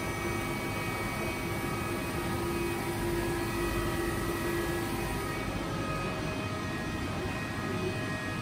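Boehringer VDF 16-M 4 CNC lathe running with its spindle turning: a steady mechanical hum with several constant whining tones. The lowest whine fades out about five seconds in.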